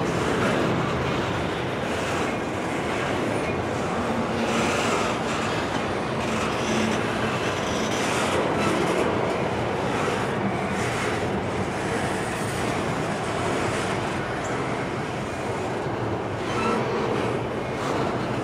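Double-stack intermodal container cars of a freight train rolling past: a steady rumble of wheels on rail with occasional clatter over the rail joints.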